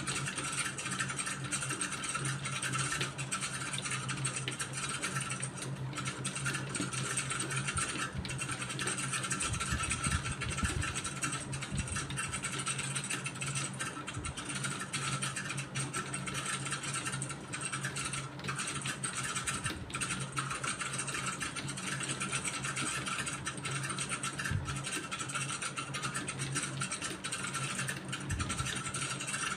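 Steady mechanical hum with many faint, irregular clicks of computer keyboard keys being typed.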